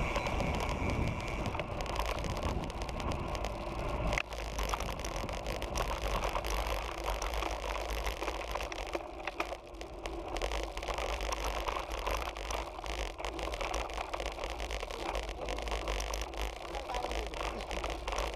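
Riding noise picked up by a GoPro on a road bike: wind rumbling on the microphone over tyre and road hiss on tarmac. The sound changes abruptly about four seconds in.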